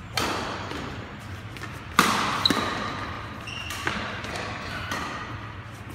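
Badminton rackets striking a shuttlecock in a rally: four or five sharp smacks, each ringing on in the echo of a large hall, the loudest about two seconds in. Short high squeaks of court shoes come between the shots.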